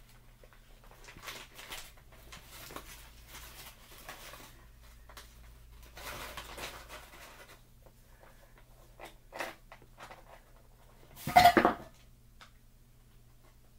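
Plastic bag of frozen shrimp rustling and crinkling as it is handled and tipped, with the shrimp tumbling out onto food in an aluminium foil pan. A loud, brief burst of crinkling and rattling near the end as the bag is shaken empty.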